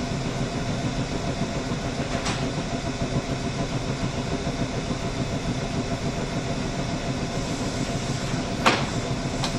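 Electric train humming steadily, with several low tones, broken by a faint sharp click about two seconds in and a louder click near the end.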